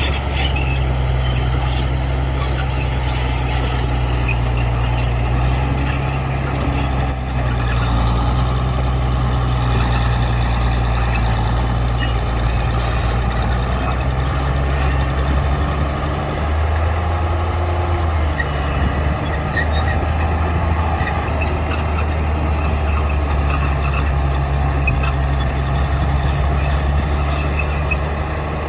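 Heavy machinery diesel engine running steadily under load, its note dipping for a couple of seconds about two-thirds of the way through before settling back.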